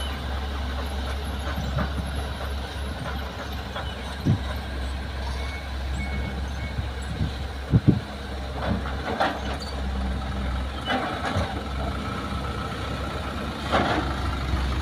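Diesel engines of a loaded Isuzu light dump truck and a Kobelco excavator running with a steady low rumble as the truck pulls away over rough ground. Scattered knocks and clatter come from the truck body over the bumps, loudest as a double knock about eight seconds in.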